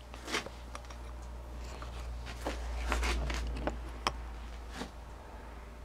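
Several light, sharp metallic clicks and scrapes of a steel hook pick working inside a BMW motorcycle's ignition trigger housing, fishing for a loose bob weight spring, over a low handling rumble that swells in the middle.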